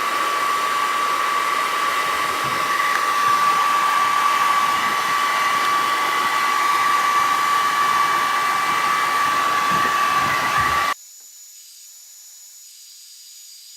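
Hair dryer running on warm, blowing steadily with a high whine as it inflates an air mattress through a cut-off plastic bottle. About eleven seconds in it cuts off suddenly, leaving only a faint hum.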